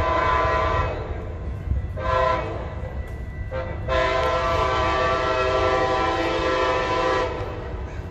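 An approaching passenger train sounds its horn in several blasts: one ends about a second in, a short blast follows about two seconds in, then a brief one, then a long blast from about four to seven seconds in. A low rumble from the train runs underneath.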